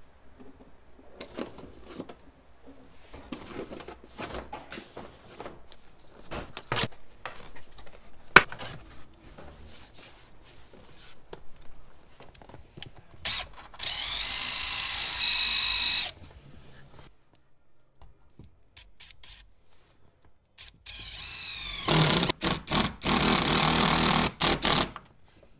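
Power drill running in two bursts, a short one of about two seconds and a longer one of about four seconds with a rising whine at its start and brief stops. The longer burst is the drill at the amplifier ground point on the car floor, taking the paint down to bare metal and driving in the ground bolt. Before the drilling there are scattered clicks and knocks from handling trim panels and wiring.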